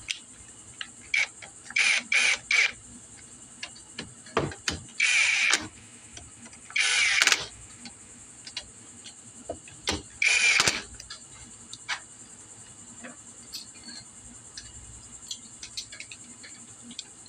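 Socket ratchet clicking in a series of short bursts as the rocker-cover nuts on a GY6 scooter engine are run down, with scattered small metal clicks between strokes.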